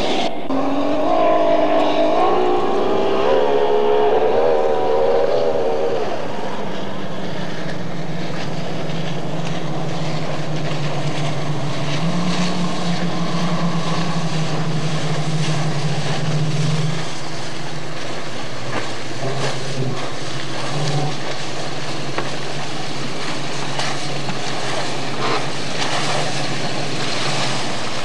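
Outboard engines of a racing boat running at high revs, their pitch wavering up and down for about six seconds, then settling to a lower, steadier hum.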